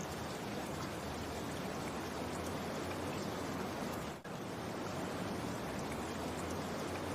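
Steady rain, an even hiss, with a brief dropout about four seconds in.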